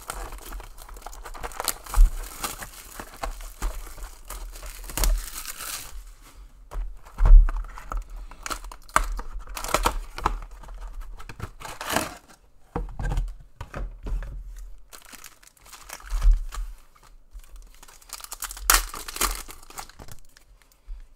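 Plastic wrapping of a trading card box and its packs crinkling and tearing as they are opened, with a few sharp knocks from handling.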